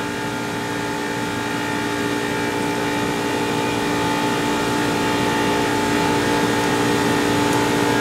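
Water-source heat pump running in cooling mode: a steady hum with several held tones, slowly growing louder as its water valve is closed down and the head pressure climbs.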